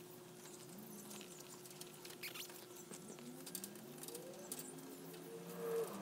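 Faint clicks and scraping of steel tie wire being twisted tight with pliers around a rebar crossing, over a steady faint hum.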